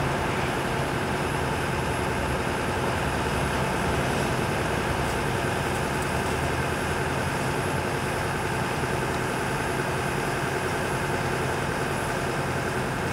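Heavy vehicle engine idling steadily, most likely a fire truck's engine.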